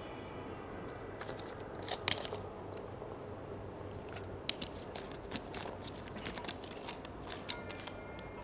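Soundtrack of a short animation film played over room speakers: irregular sharp clicks and crunching sound effects over a steady hiss, the loudest cluster about two seconds in.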